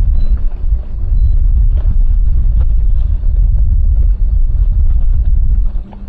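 Motorboat running at speed across open water: heavy wind rumble on the microphone over a steady engine hum. The rumble drops briefly near the end.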